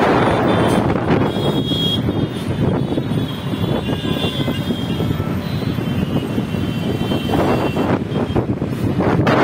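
Steady road traffic noise from cars, buses and motorbikes on a busy bridge, mixed with wind on the microphone that is heaviest at the start and near the end.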